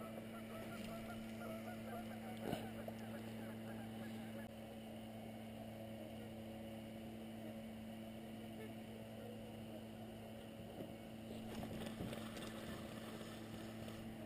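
Geese honking, a run of repeated calls over the first couple of seconds, then one sharp knock about two and a half seconds in, over a faint steady hum.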